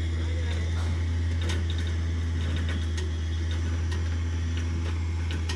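Electric trailer winch running with a steady low hum, pulling a dirt late model race car up into an enclosed trailer, with a few light clicks.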